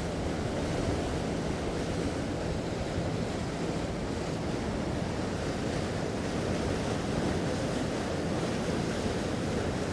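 Steady rush of wind and water aboard a motor yacht under way, with a low engine hum underneath.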